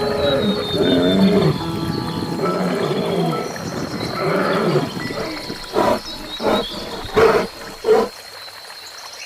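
Lion roaring: several seconds of wavering, pitch-bending calls, then four short grunts about two-thirds of a second apart.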